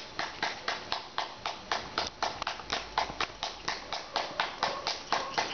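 Hands clapping quickly and steadily, about four to five claps a second.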